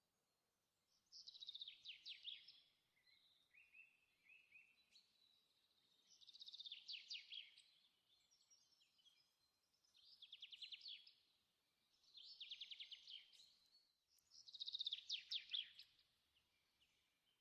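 A small songbird singing: five short, rapid, high trilled phrases, spaced every three to four seconds.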